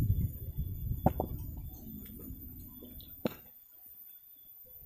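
Dull low thumps and rustling of footsteps through grass and weeds, with handling knocks on the microphone. There is a sharp click about a second in and another after about three seconds, and then it goes much quieter.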